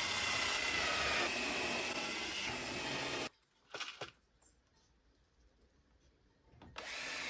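Power drill driving screws into wood: its motor whine steps down in pitch twice as it works, runs about three seconds and stops. After a pause with a couple of light knocks, the drill starts again near the end.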